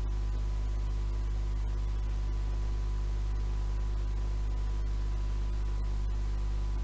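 Steady low mains hum with overtones and a constant hiss from the playback of an old reel-to-reel tape, with a faint steady high whine on top.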